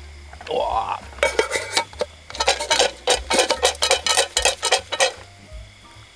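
Popcorn kernels popping fast inside a lidded metal camping pot on a gas stove, an irregular run of sharp pops rattling against the pot. It starts about a second in and dies down near the end.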